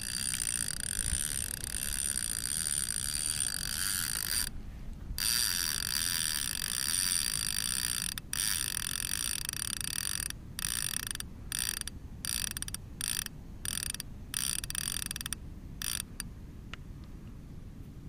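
Fishing reel being cranked, a steady whir that stops and starts in short pauses, more often in the second half.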